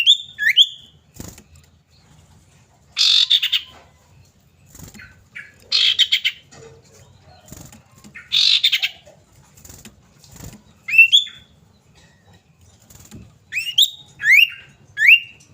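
Common iora calling: sharply rising whistled notes near the start and in a run of three or four near the end, with three loud, harsh chattering rattles in between.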